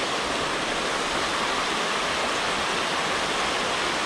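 Steady rush of river water pouring over a low weir, close by.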